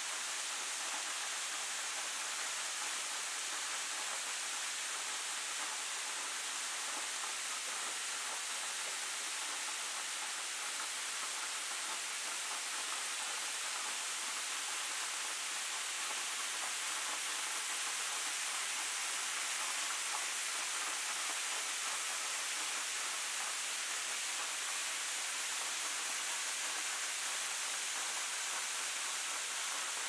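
Waterfall spilling down a rock face and splashing onto the ledges and pool below: a steady, even hiss of falling water.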